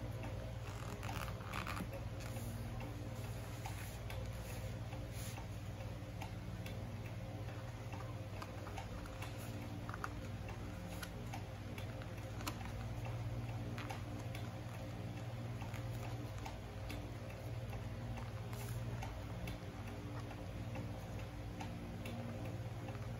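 A sheet of paper being handled, folded and pressed flat by hand: soft rustles and occasional light clicks, strongest in the first couple of seconds, over a steady low hum.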